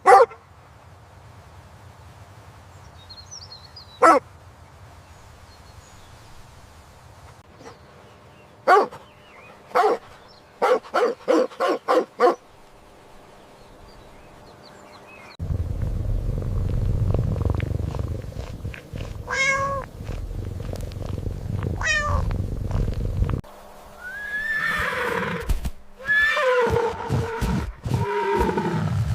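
A string of animal calls and noises: a few short sharp sounds, then a quick run of five, then a low rumble with two calls over it, and several gliding, wavering calls near the end.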